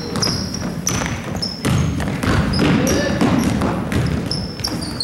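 Basketball game on a gym court: a ball bouncing, sneakers giving short high squeaks on the floor, and a steady murmur of crowd voices.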